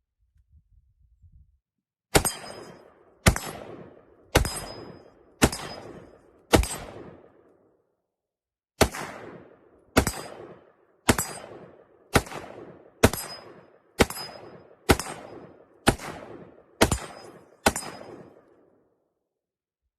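Gunshots fired in two strings, five then ten, each shot about a second apart, every report followed by a ringing echo tail.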